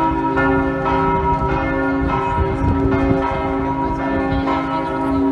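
Church bells of St Mark's Campanile ringing a peal, several bells struck in turn so that their tones overlap over a lasting low hum.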